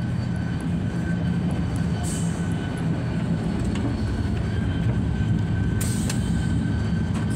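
TGV Inouï double-deck high-speed train running at speed, heard inside the carriage: a steady low rumble with a faint constant high whine. About six seconds in there is a short sharp sound as the button of the glass sliding door into the bar car is pressed.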